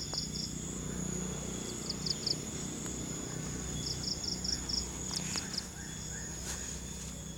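Insects chirping: a steady high-pitched trill with short bursts of rapid chirps, three to five pulses each, repeating every second or two.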